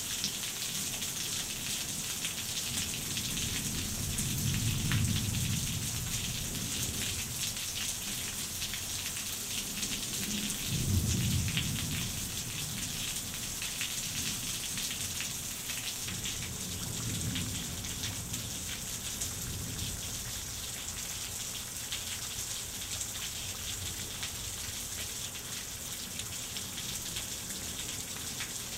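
Steady downpour of rain, with low rolls of thunder: one swelling about four seconds in, a louder one starting more sharply about eleven seconds in, and a fainter one about seventeen seconds in.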